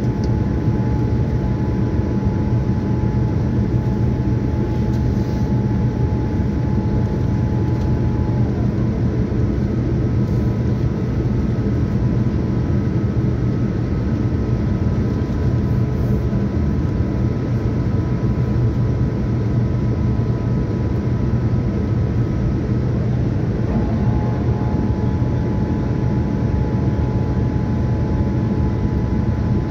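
Cabin noise inside a Boeing 787-9 in descent: a steady deep roar of airflow and its GEnx engines, with a few faint whining tones over it. One tone slides down and stops about eight seconds in, and a similar tone comes back near the end.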